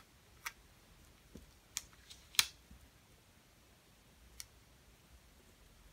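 A handful of light clicks and taps from a paper cut-out being handled and positioned on a planner page on a desk, the sharpest about two and a half seconds in.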